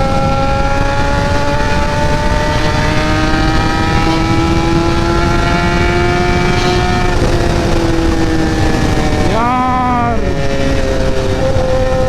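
Kawasaki ZX-10R inline-four engine running while riding, under heavy wind rumble on the helmet microphone. Its pitch climbs slowly for the first several seconds, then drops away. There is a quick rev up and back down about ten seconds in, and the engine settles to a steady tone near the end.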